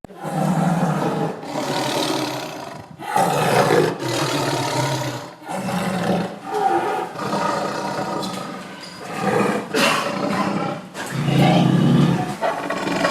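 Tiger roaring, a series of loud roars one after another with short breaks between them.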